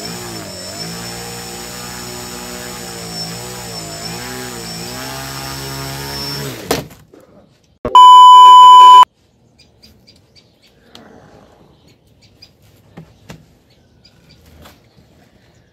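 A small brushless RC motor running, its pitch swinging up and down as the throttle is varied, then cutting off abruptly about seven seconds in. About a second later comes a loud, steady high test-tone beep lasting about a second, the sound of a TV colour-bar test pattern, followed by faint handling clicks.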